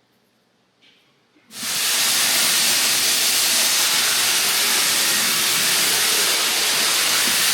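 Near silence, then about a second and a half in a loud, steady hiss starts suddenly and holds without a break.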